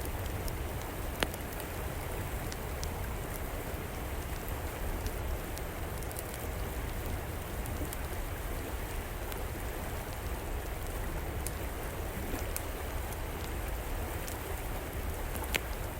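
Steady rush of flowing river water, with sharp crackles and pops from a wood fire scattered over it; one louder pop about a second in and another near the end.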